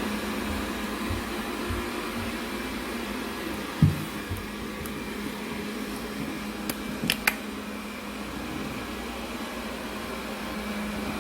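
Robot vacuum cleaner running with a steady hum. A single low thump comes about four seconds in, and a few sharp clicks follow about three seconds later.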